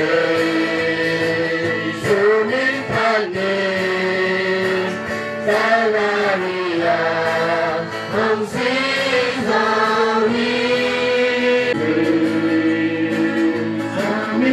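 A choir of voices singing a slow hymn, with long held notes.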